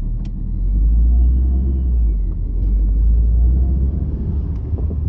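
Paredão car sound system playing loud, deep bass that comes across as a heavy rumble, with a faint high tone gliding up and down above it.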